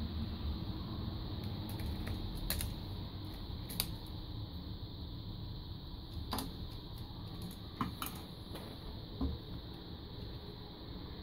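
Scattered sharp plastic clicks and snaps as a headphone ear cup and its parts are handled and pried apart, over a steady low background rumble.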